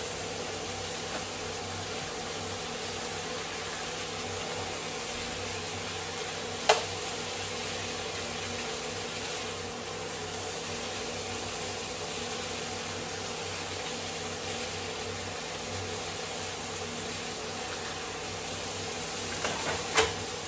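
Bite-sized chicken pieces sizzling steadily in oil in a frying pan, over a steady low hum. A utensil clinks sharply against the pan once about a third of the way in and again near the end.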